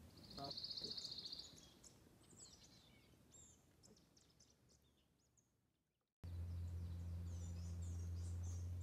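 Small birds calling: a fast high trill lasting about a second, then scattered high chirps that fade out. After a sudden cut, a steady low hum starts up, with more high chirps over it.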